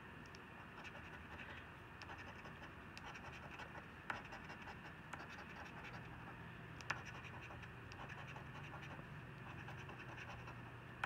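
A gold-coloured coin scraping the scratch-off coating off a paper lottery ticket in quick, short, repeated strokes. The scraping is faint, with a few sharper clicks, the loudest about four and seven seconds in.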